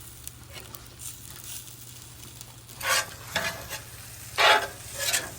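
Steak and sausage sizzling as they fry hibachi-style on a hot cooking surface. About three seconds in and again about four and a half seconds in, a utensil makes pairs of louder stirring strokes.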